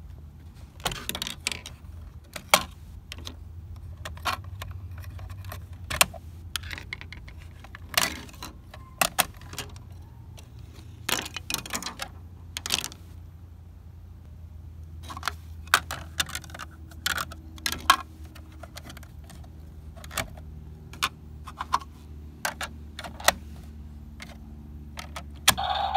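Hard plastic toy car body panels being pulled off and snapped into place, giving irregular sharp clicks and clacks, with a steady low hum underneath.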